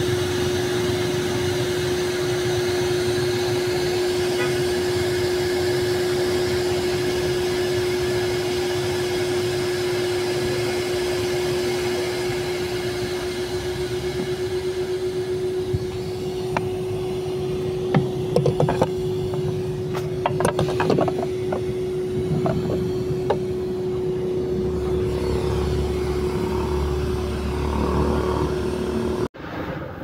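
Vacuum cleaner motor running steadily with a constant hum and hiss while it sucks a wet, shampooed carpet. From about halfway there are scattered knocks and clicks, and the sound cuts off suddenly near the end.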